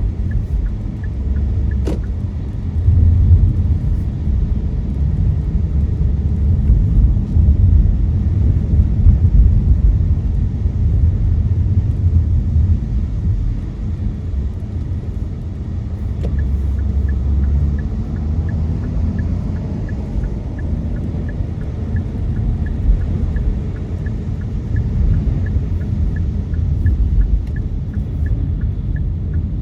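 A car driving, heard from inside the cabin: a steady low road and engine rumble. A faint regular ticking about twice a second comes in near the start and again through the second half.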